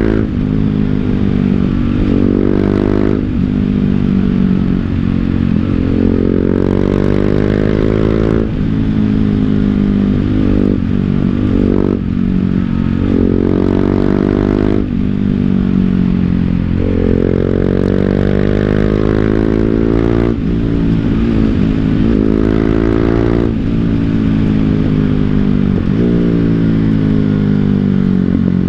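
BMW G 310 GS's single-cylinder engine through an Akrapovic full-system exhaust, accelerating through the gears: the pitch climbs and drops back at each shift, many times over, then falls away steadily as the bike slows near the end.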